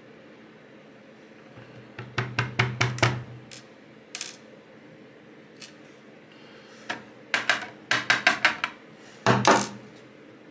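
Small metal clicks and taps of a Nemef NF2 pin-tumbler lock being knocked and handled to shake its pins out of their chambers. The clicks come in two quick runs, about two seconds in and again near the end, with a few single clicks between.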